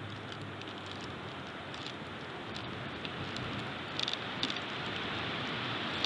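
Strong wind blowing through the pine trees and over the nest cam's microphone: a steady rushing noise that grows louder toward the end, with a few short clicks about four seconds in.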